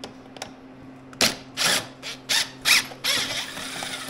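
Ratcheting screwdriver backing out a snowmobile hood screw: several short ratchet strokes about a second in, then a faster continuous run of clicking for about a second and a half near the end.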